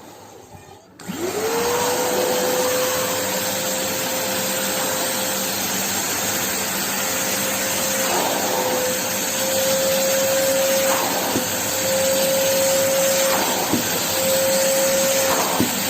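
Multipro VC 10-1 YS wet-and-dry vacuum cleaner switched on about a second in: its motor spins up in a quick rising whine and then runs steadily with a strong airflow hiss. The whine dips briefly in pitch a few times.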